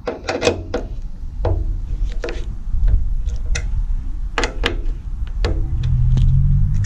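Plastic motorcycle front body panel being fitted and pressed onto its mounts: a string of about ten sharp plastic clicks and knocks. A low rumble grows louder in the second half.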